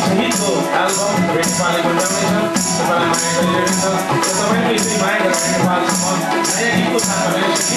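Nepali folk music played live by an ensemble of madal drum, tabla, harmonium, bansuri flutes and guitar. A high shaker-like rattle keeps an even beat about twice a second.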